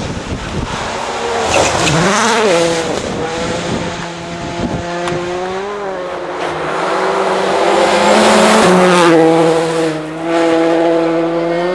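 Rally car engine at high revs on the stage: a quick rev up and down about two seconds in, then held at full throttle and growing louder as it nears, easing off briefly near the end before pulling again.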